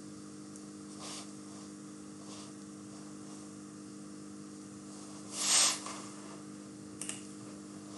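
Steady electrical hum with faint hiss from the recording setup, with a short breathy rush of noise about five and a half seconds in and a few faint ticks.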